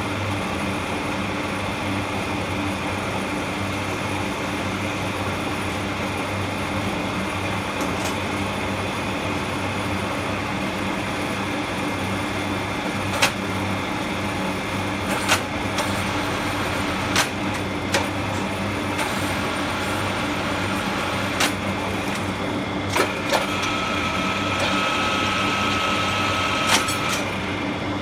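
A 6R82 horizontal milling machine running steadily, its motor and gear-driven spindle giving a low hum with a whine from the gearing. Sharp clicks and knocks come now and then in the second half as the table's handles and levers are worked. A higher steady tone joins for about three seconds near the end.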